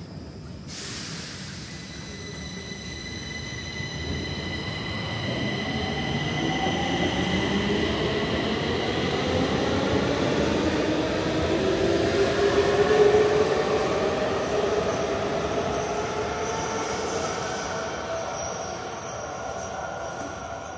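Stockholm metro train pulling out of an underground station. A hiss comes about a second in, then the motors' whine rises in pitch as it gathers speed, along with wheel noise. It is loudest about 13 seconds in, then fades as the train leaves the platform.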